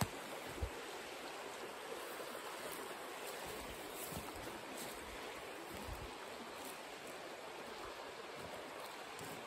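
Small woodland stream running, a steady rush of water. A few soft low thumps, the loudest about half a second in.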